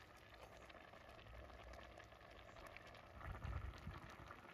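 Faint bubbling of lupini beans boiling in water in a pot, with a slightly louder stretch of bubbling about three seconds in.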